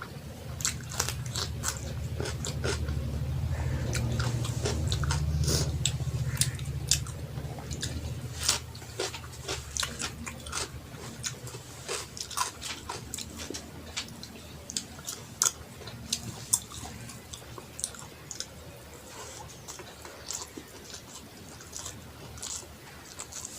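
Close-miked eating sounds: chewing with many short wet smacks and clicks of the mouth, from a mouthful of rice and curry. A low rumble runs underneath for about the first half, loudest around five seconds in.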